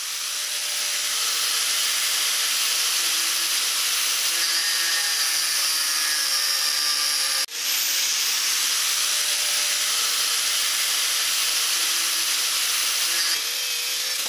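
DeWalt angle grinder with a thin cut-off wheel cutting through steel stock, spinning up at the start and then running steadily under load with a high whine over the hiss of the cut. The sound drops out for an instant about halfway through.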